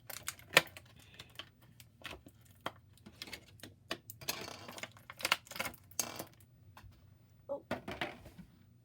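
Hard plastic clicking, tapping and crinkling as a small toy gun accessory is worked loose from a plastic packaging tray, with a sharp snap just after the start and a stretch of crackling in the middle.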